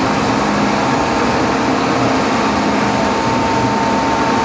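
Steady machine hum of a CNC lathe and its surroundings, with a thin steady whine over it and no knocks or clicks. The chuck is stopped, not spinning at cutting speed.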